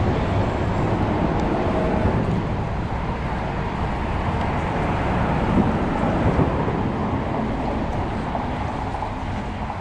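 Steady low rumble and hiss of wind buffeting the microphone, mixed with road traffic noise from the bridge overhead.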